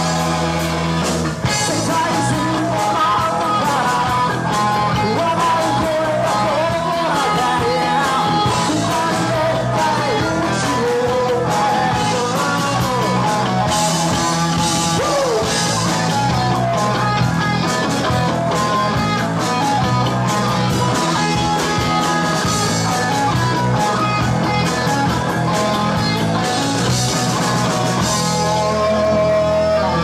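Live rock band playing: electric guitars, bass guitar and drums, with a man singing over them through much of it; near the end the singing gives way to the guitars.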